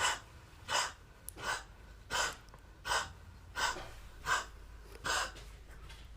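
A cat coughing: a steady run of short, breathy coughs, about eight evenly spaced in six seconds.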